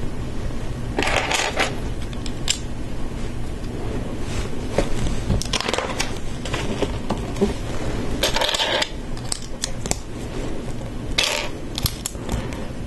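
Plastic LEGO bricks clicking and clattering as they are handled by hand: picked out of a loose pile and pressed onto a build, with scattered single clicks and several short bursts of rattling.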